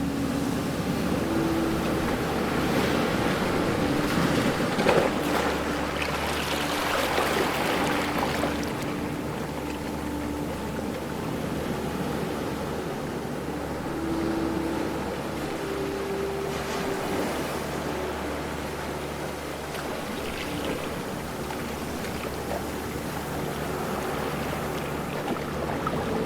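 Ocean waves breaking and washing ashore, with a louder surge of surf in the first third and a smaller one near the end. A faint steady hum sits under the surf, shifting in pitch now and then.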